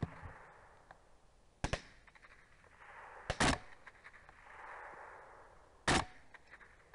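Four rifle shots, the middle two fired almost together, each trailing off in a fading echo.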